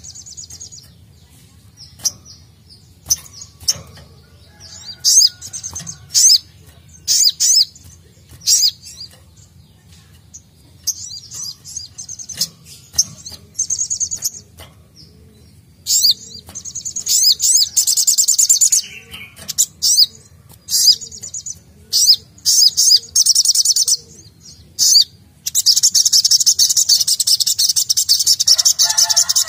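A caged sogok ontong (sogon), a sunbird, singing. It gives short, sharp, high chirps at first, then long, rapid, high-pitched trilled runs about halfway through and again near the end.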